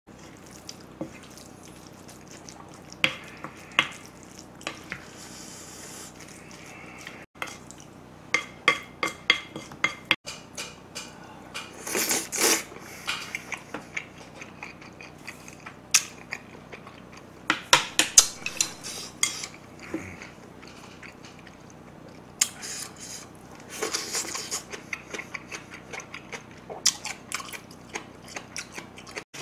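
Spoon scraping and clinking against a bowl as rice is mixed with spicy marinated crab, in irregular clusters of sharp clicks with short pauses between.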